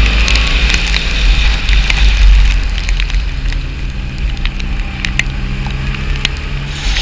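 Motorcycle on the move in the rain: the engine runs steadily under heavy wind rumble on the microphone, with scattered sharp ticks of raindrops striking it.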